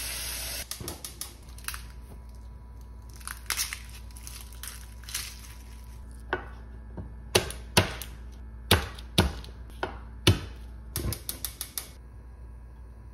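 Tap water running into a saucepan, cut off abruptly about half a second in. Then the dry crackle of garlic skins being peeled and a chef's knife knocking on a wooden cutting board, with a run of sharp knocks in the middle.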